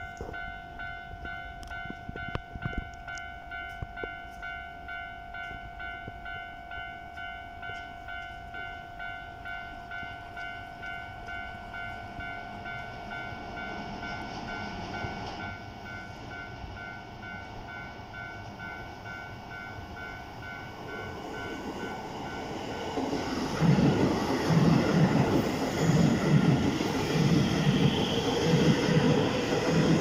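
Japanese level-crossing warning bell ringing with a steady pulsing tone. A Keisei 3000-series electric train draws near, and from about 23 seconds in it passes close by, much louder than the bell, its wheels clattering rhythmically over the rail joints.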